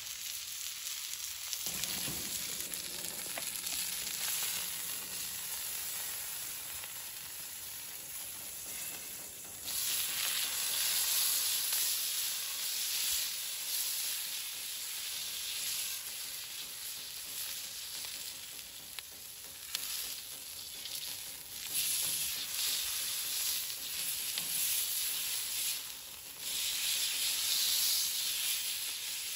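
New York strip steak sizzling as it sears on a Himalayan salt block heated to about 485 °F. The sizzle grows louder about ten seconds in and again near the end, as the steak is turned onto the hot block with tongs.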